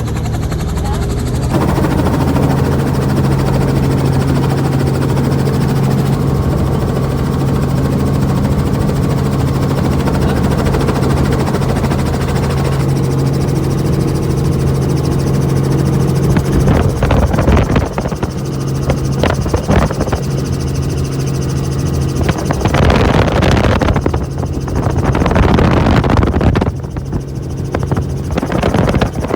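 Helicopter in flight heard from inside the cabin: a steady low drone from the engine and rotor. Gusts of rushing noise come and go through the second half.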